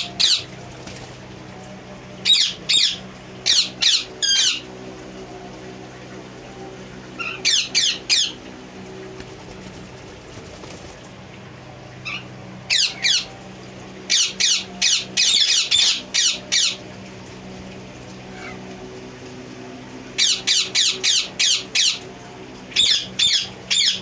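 Parrots calling in clusters of three to six short, high-pitched calls. The clusters come a few seconds apart over a low steady hum.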